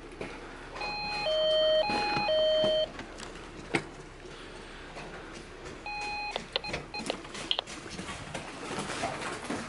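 Electronic door-entry intercom keypad panel beeping: four alternating high and low tones over about two seconds, then a sharp click, and a few seconds later another tone and a few quick short beeps.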